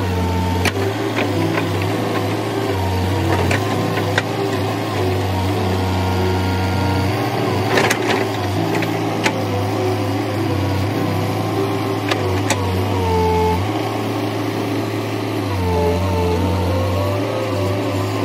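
Escorts Dig Mix II backhoe loader's engine running steadily while the backhoe arm works at digging out a tree, its pitch shifting a few times as the load changes. Short whining tones and a few sharp metallic clicks and knocks come through over it.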